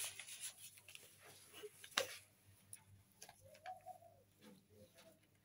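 Faint scattered ticks and taps from kittens playing and being handled on a carpet, the sharpest about two seconds in. A short soft tonal call comes about three and a half seconds in.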